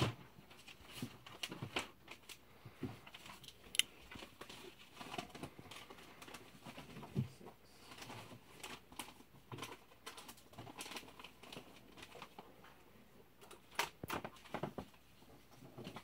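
Handling noise from a Damascus steel linerlock folding knife: irregular small metallic clicks and rubbing as the blade is swung open and the knife is turned in the hand, with a sharp click about four seconds in and a quick run of clicks near the end.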